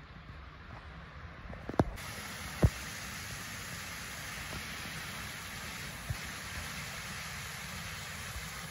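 Steady rushing hiss of water running through a stone arch culvert, which comes in louder about two seconds in. Two short sharp knocks sound just before and just after it begins.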